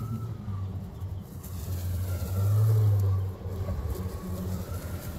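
Kobalt 80V brushless self-propelled battery lawn mower running with a low steady hum while cutting grass, and a pickup truck driving past, loudest about halfway through.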